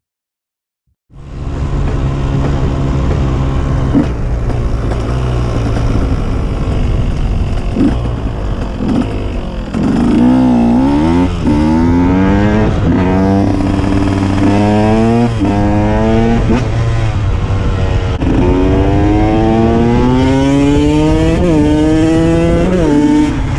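KTM 125 EXC two-stroke enduro motorcycle engine, starting about a second in. It runs steadily at first, then accelerates hard several times, its pitch rising and dropping back as it shifts up through the gears.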